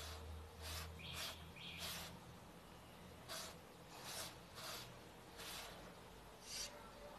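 Fingertip swiping across a smartphone's glass touchscreen: about eight short, faint swishes spread over several seconds, a couple of the early ones with a brief squeaky tone.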